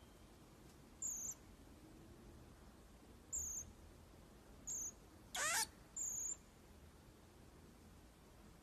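Common marmoset giving a series of short, very high-pitched calls, five in about five seconds, one near the middle a louder wavering call that slides down in pitch.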